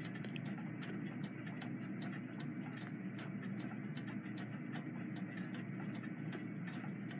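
Ballpoint pen drawing on paper: quick, irregular ticks and scratches as the pen strokes, over a steady low hum.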